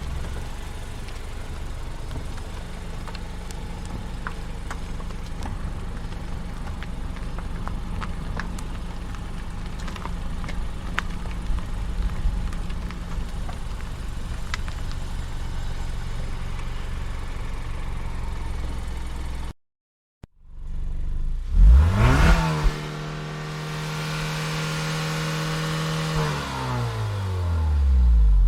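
Car driving with a steady low engine and road rumble and scattered small clicks. After a short break about two-thirds of the way in, another car engine revs up sharply, holds a steady note, then falls in pitch as it slows, loudest near the end.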